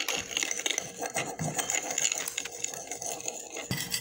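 Metal spoon stirring gel food colouring in a ceramic plate: a run of quick clinks and scrapes of the spoon against the china.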